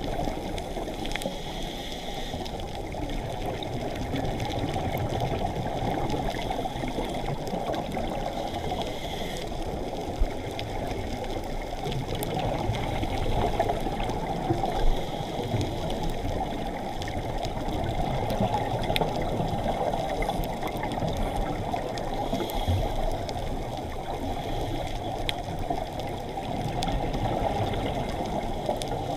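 Underwater sound picked up during a scuba dive: a steady, muffled watery rush that swells and eases slowly, with faint scattered clicks. Two sharper clicks come about ten and fifteen seconds in.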